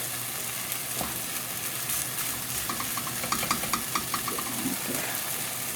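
Onion-and-tomato mixture sizzling in a frying pan as it is browned. About halfway through there is a quick run of light ticks, about six a second for a second and a half, from stirring.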